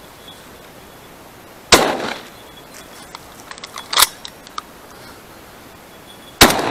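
Two hunting shotgun shots, one about 1.7 s in and one near the end, each a sharp blast with a short echoing tail, with a shorter, sharper crack between them about 4 s in.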